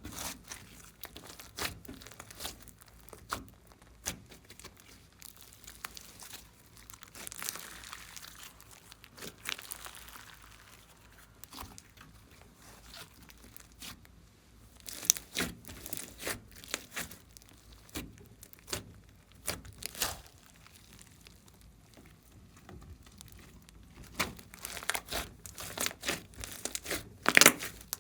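Glossy slime being squeezed, stretched and folded by hand: irregular sticky clicks and small air-pocket pops, coming in dense clusters about halfway through and again near the end.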